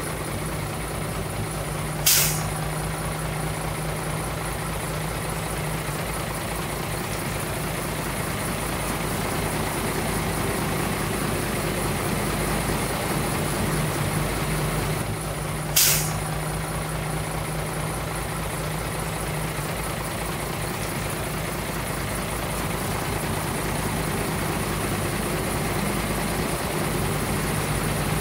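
A heavy diesel engine running steadily, with two short, sharp hisses of released air: one about two seconds in and one some fourteen seconds later.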